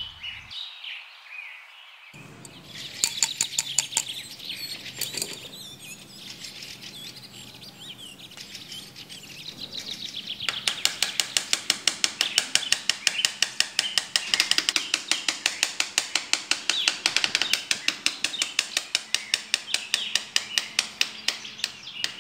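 Small birds chirping. About ten seconds in, a fast, even clicking joins them, at about five clicks a second.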